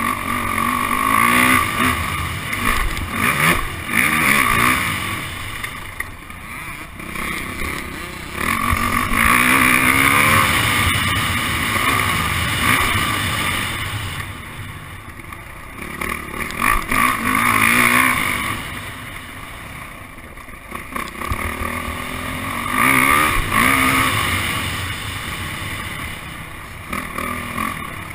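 Yamaha motocross bike engine heard from an onboard camera, revving hard up through the gears and backing off into the corners several times, its pitch rising and falling with the throttle.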